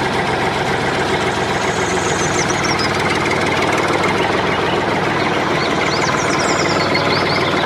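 Tractor engine running steadily, with short high chirps over it now and then.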